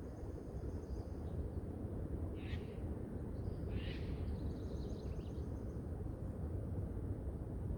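Songbirds calling over a steady low rumble of wind and distant city noise: thin high trills near the start and again past the middle, and two short harsher calls about two and a half and four seconds in.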